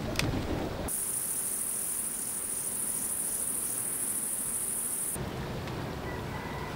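A steady, very high-pitched chorus of insects shrilling, starting about a second in and cutting off abruptly about four seconds later. A single sharp click comes just before it.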